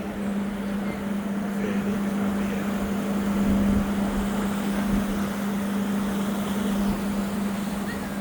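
A boat's engine runs with a steady drone at one low pitch, under a constant rush of wind on the microphone.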